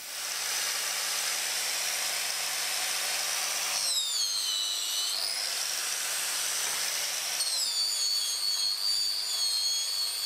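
Corded angle grinder running with a polishing disc pressed against a hardened steel hammer face, a dense hiss over the motor's whine, while the face is cleaned of heat-treat colouring and polished. The whine drops in pitch about four seconds in and climbs back a second later.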